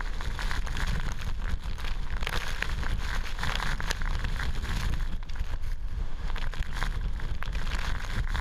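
Typhoon eyewall wind and torrential rain: gusts buffeting the microphone with a heavy low rumble, over a constant hiss of driving rain with frequent sharp crackles.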